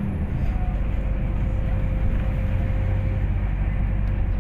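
MAZ-203 city bus running, heard from inside the passenger cabin: a steady low engine and road rumble, with a faint steady whine through most of it.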